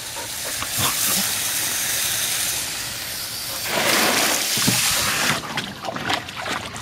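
Water spraying hard from a garden hose nozzle, a steady hiss that grows louder for a second or so about halfway through.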